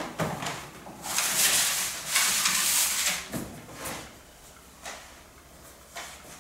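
A metal baking tray sliding and scraping over a steel worktable: two long scrapes about a second in, with a few light knocks before and after.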